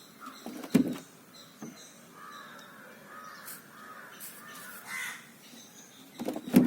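Repeated harsh bird calls in the background, with two sharp knocks or splashes, one about a second in and one near the end.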